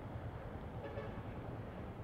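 Yamaha Sniper 155's single-cylinder engine running at low speed, a steady low rumble.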